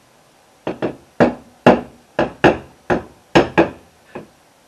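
A short brass bar tapping on a steel lathe chuck body: about ten sharp metallic knocks with a brief ring, irregular at two or three a second.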